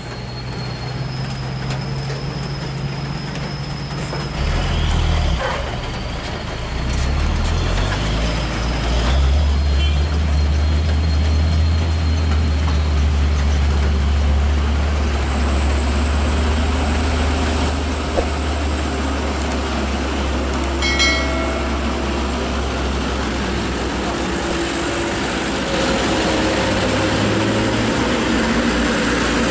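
Truck diesel engine running close by, a low steady drone that builds about five seconds in and holds. A short sharp sound comes about twenty-one seconds in.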